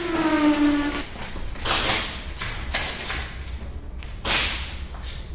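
Several short bursts of airsoft gunfire, roughly a second apart, with a brief held, pitched cry in the first second.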